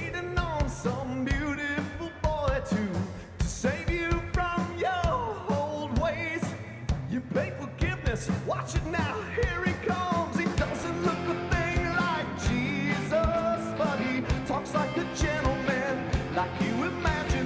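Live rock band playing with drums, electric guitar and bass. The lead line bends and wavers and is most likely a harmonica played cupped against the vocal microphone.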